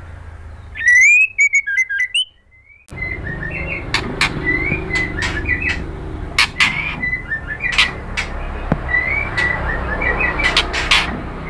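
White-rumped shama singing. About a second in it gives a loud phrase of gliding whistles, then after a brief pause a run of short whistled notes mixed with sharp clicks.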